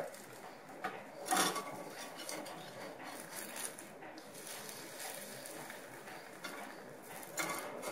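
A thin metal spatula scraping and clicking against a cast-iron pancake pan as small pancakes are loosened and flipped: a few light scrapes and taps, the loudest about a second and a half in.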